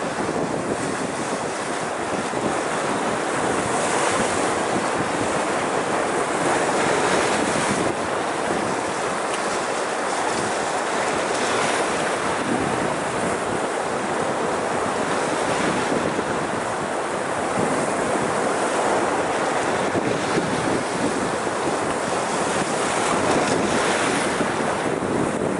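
Small sea waves washing and splashing over shoreline rocks, the surf swelling and easing every few seconds, with wind.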